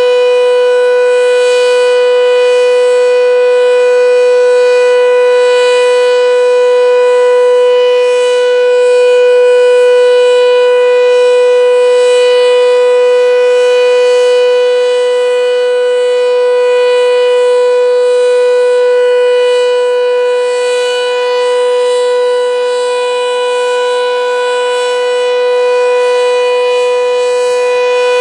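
Sentry 7V8-B outdoor warning siren sounding its steady alert tone at full speed. It holds one unchanging pitch, with its loudness swelling and dipping slightly.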